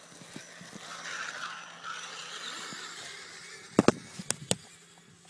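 Axial Wraith radio-controlled truck driving away across beach sand, its motor and tyres making a rushing noise that fades as it goes. About four seconds in come four sharp knocks close together.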